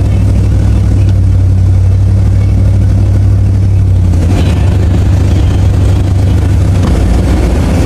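Steady, loud low drone of a car driving: engine and road noise running without a break.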